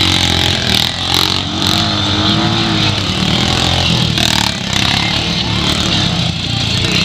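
Honda Pioneer 500 side-by-side's engine running steadily as it drives along a dirt trail, mixed with music with a singing voice playing from its own speakers.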